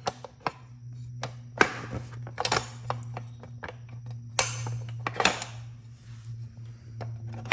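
Metal quick-disconnect splitter bracket parts clicking and clinking as they are handled and slid together, with a few short scrapes. A steady low hum runs underneath.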